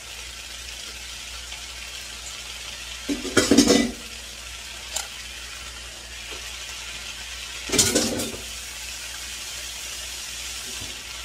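Chinese greens and enoki mushrooms sizzling steadily in a hot frying pan. Two louder clattering knocks break in, about three and eight seconds in.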